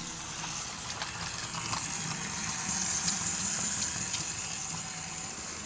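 Small electric motor of a Faller Car System model delivery truck whirring as it drives along the layout road, over a steady low hum. The whir grows a little louder around the middle, with a few faint ticks.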